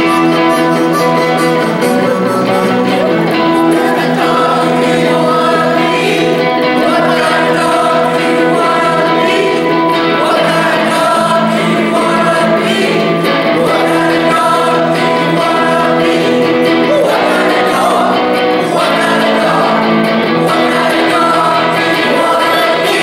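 A live band playing a song with guitar and several voices singing together.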